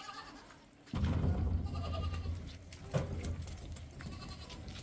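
Small livestock bleating: several wavering bleats near the start and again from about a second in. A low rumble comes in about a second in and carries on under them.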